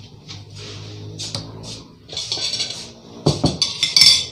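Metal spoons and forks clinking against ceramic plates as places are set at a table, with a quick run of sharp clinks near the end.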